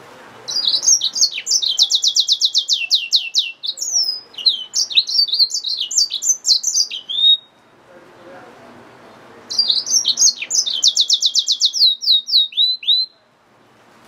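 Yellow-fronted canary mule (hybrid finch) singing two high song phrases about two seconds apart. Each phrase opens with a fast trill of about ten notes a second and runs on into varied twittering notes.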